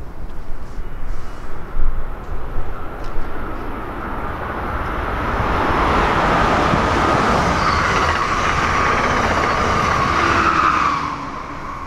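Amtrak passenger train passing at speed: a broad rush of wheels on rail builds from about four seconds in, holds steady, and drops off suddenly near the end as the last car goes by. Before it there is an uneven low rumble with a few loud bumps.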